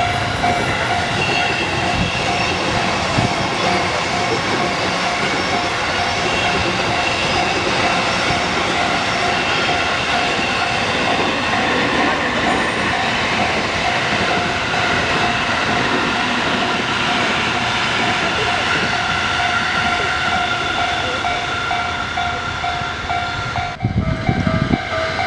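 Train running past at a railway level crossing, its steady rolling noise filling the sound, with the crossing's warning bell dinging in an even, repeating beat over it. The sound breaks off briefly near the end and picks up again.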